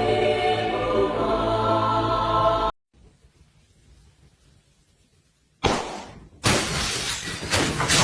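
A song with singing plays and cuts off abruptly a little under three seconds in. After a short near-silent gap comes a sudden loud crash, then a second crash with clattering and smashing noise that keeps going.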